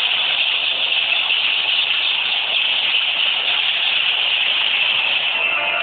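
Washing machine running at full speed, a steady, even rushing noise with no separate knocks. Music comes in near the end.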